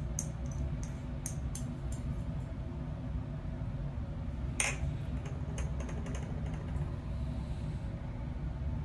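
Small clicks and scrapes of a metal scoop against a glass evaporating dish, with one sharper clink about four and a half seconds in, over a steady low hum.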